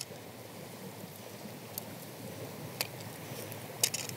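A few faint sharp clicks from monofilament line and a plastic GoPro extension arm being handled, over a steady outdoor hiss.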